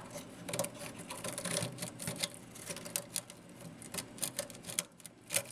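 Light, irregular clicking and crackling as a rusted gas-grill crossover tube is worked loose by hand and scrapes against crusted grease and carbon in the firebox.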